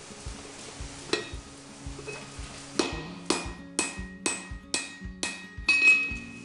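Blacksmith's hammer striking a punch into a hot steel bar on the anvil: one blow about a second in, then a run of about seven blows, roughly two a second, each with a short metallic ring.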